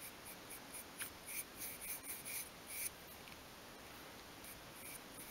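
A small paintbrush stroking white paint onto a small obeche-wood boat hull: a faint run of quick, soft brushing scratches at about three a second, pausing about three seconds in and starting again near the end.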